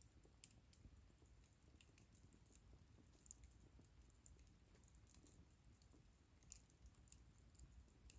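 Faint crackling of a wood bonfire: scattered sharp snaps and pops, a few each second, over a low steady rumble.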